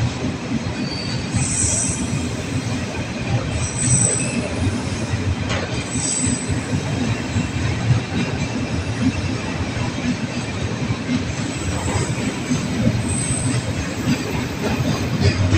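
Container flat wagons of a freight train rolling past: a steady rumble of steel wheels on rail with scattered clacks, and brief high-pitched wheel squeals four times, about 1.5, 4, 6 and 13 seconds in.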